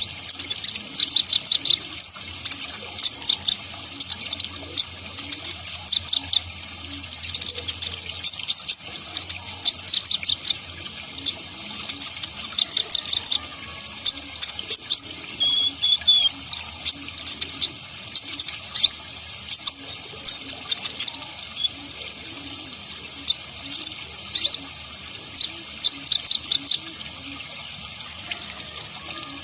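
Sunbird (kolibri ninja) singing: short bursts of fast, high, clicking chips and trills every second or two, over a steady hiss.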